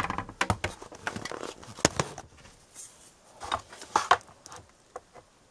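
Handling of a coiled power cord and its plug: scattered light clicks, knocks and rustles, the sharpest about two seconds in and a cluster of them near the end.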